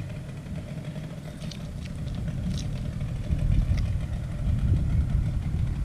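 A low, uneven rumble that grows louder about halfway through, with a few faint ticks over it.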